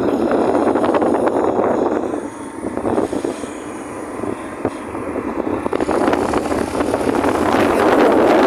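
Motorcycle on the move, its engine running under a rough, steady noise that eases off slightly in the middle and builds again near the end.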